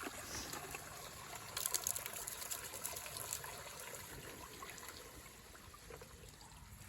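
Spring water running from a pipe into a plastic drinking bottle, filling it fast under pressure, with a louder stretch of splashing and spattering between about one and a half and three and a half seconds in.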